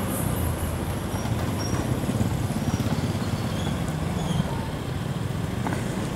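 Motorcycle engine running steadily while riding, under a constant rush of road and wind noise.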